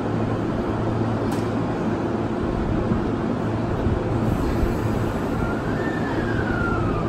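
Steady hum and rumble of a stationary E231 series 800 electric train waiting at a platform. A single sharp click a little over a second in, and in the second half a thin tone that rises and then slowly falls over about two seconds.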